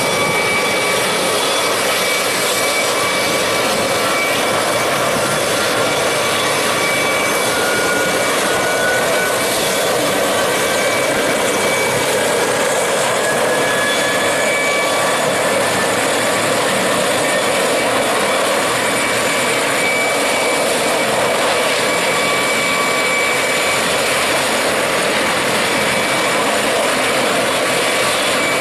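Sikorsky CH-53E Super Stallion's turboshaft engines running with a steady high whine over a dense rush of noise, one tone slowly rising in pitch around the middle.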